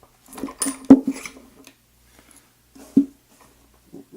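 Metal clinks and knocks of a picked disc-detainer lock and lockpicking tools being handled: a quick clatter from about half a second to a second and a half in, loudest near one second, then a single knock near three seconds and a few light ticks near the end.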